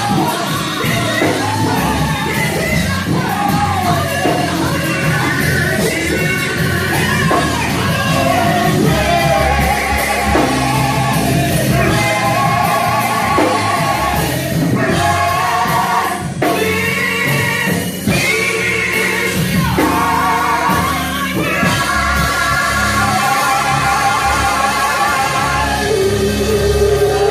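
Live gospel singing with band accompaniment: sung vocal lines held and sliding over a steady instrumental backing.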